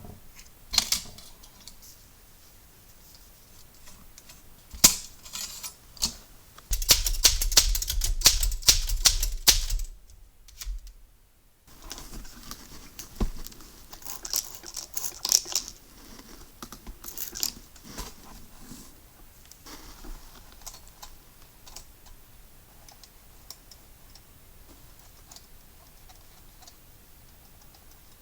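Typewriter parts and tools being handled: scattered metallic clicks and small clatters, with a louder stretch of rapid rattling over a low rumble from about seven to ten seconds in.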